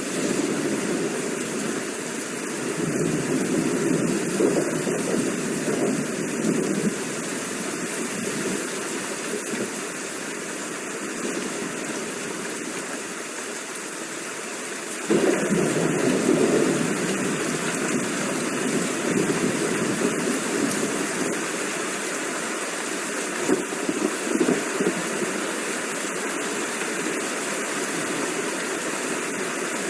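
Steady heavy rain with a low rumble of thunder running underneath. The rumble rises suddenly at the start and again about halfway through, then eases off slowly.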